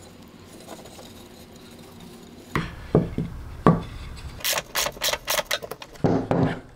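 Small metal hardware, a bolt and spacer, clicking and clinking in the hands as it is fitted through a stained wooden arm. After a quiet start come a few sharp clicks, then a quicker cluster of clinks near the end.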